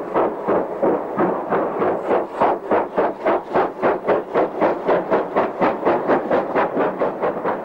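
LMS Ivatt Class 2 2-6-2T two-cylinder tank engine No. 41241 exhausting hard as it works a passenger train away, a steady run of chuffs at about four beats a second.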